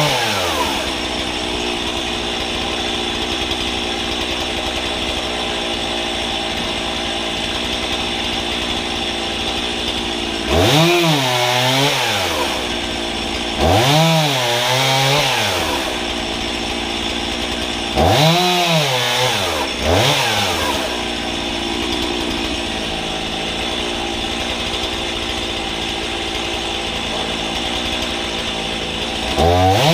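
Gas chainsaw on a homemade guillotine cutting stand, its engine running steadily between cuts and revved up and back down about five times, each rev lasting a second or two.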